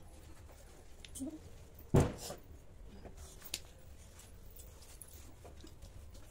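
A single sharp knock about two seconds in, over faint room noise, with a few soft clicks.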